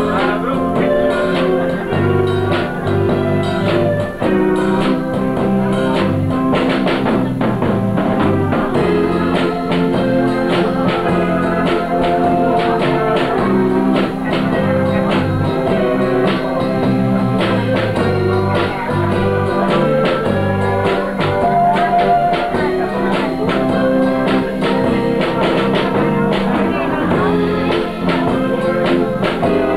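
Live band playing: electric guitars over a drum kit, with a steady bass line and continuous drumming.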